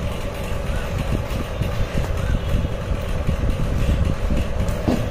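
Steady low rumble of street traffic and engines, with a faint steady hum.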